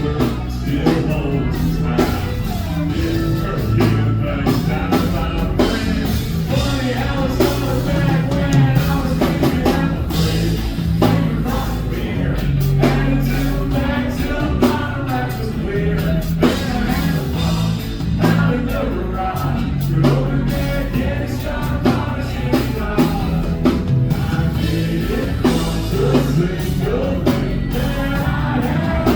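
Rock-style song with singing, guitar and drum kit playing continuously.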